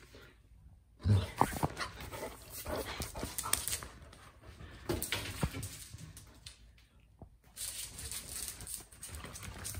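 Excited basset hound scrambling and running about on a hardwood floor and rug, its paws and claws clattering in quick knocks, mixed with the dog's own noises. The commotion starts suddenly about a second in, with its loudest knocks at the start and a short lull a couple of seconds before the end.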